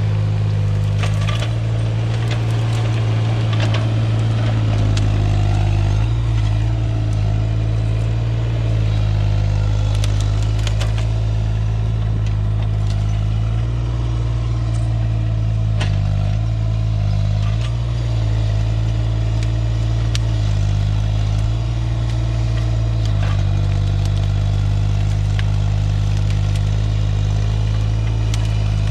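Diesel engine of a compact earthmoving machine running steadily under working load, its note shifting several times, with scattered sharp cracks and clicks of wood and brush being handled.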